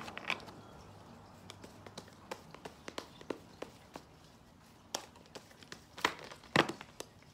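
A deck of tarot cards being shuffled by hand: a scatter of light card taps and clicks, with a few louder ones in the second half.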